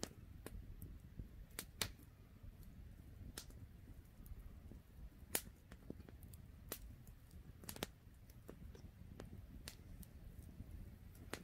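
Wood campfire crackling: faint, irregular sharp pops and snaps, the strongest about five seconds in.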